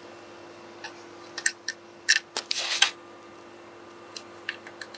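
Small metallic clicks and taps of a nut being fitted by hand onto a stud of a steel battery clamp bracket, with the loudest cluster of clicks and a short scrape a little over two seconds in, over a faint steady hum.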